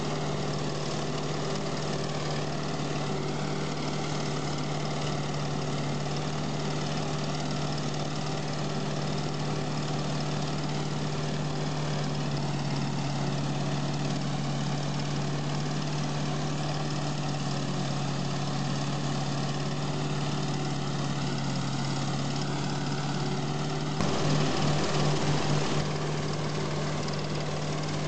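Self-propelled forage harvester running under load while chopping standing maize, with the tractor hauling the trailer alongside: a constant machinery drone with a strong steady hum. About 24 s in it grows louder for a couple of seconds, with a rapid pulsing.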